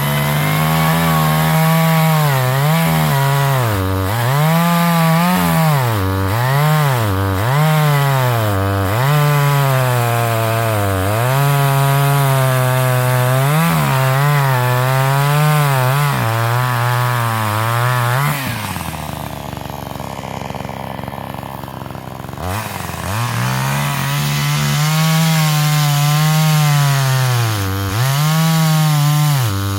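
Forest King two-stroke gas chainsaw at high revs cutting through a log, its pitch sagging and recovering again and again as the chain bites under load. About two-thirds of the way in, it drops to idle for a few seconds, then revs back up and cuts again.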